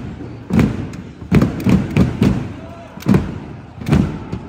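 Fan drum section beating large bass drums in a rhythmic pattern of booming strikes, some single and some in quick runs of two or three.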